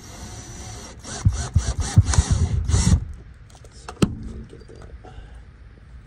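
Cordless drill driving a bolt with a socket bit, tightening the clamp that holds a choke cable on a lawn mower engine. It runs for about three seconds with a string of uneven knocks in the second half, and a single sharp click follows about a second later.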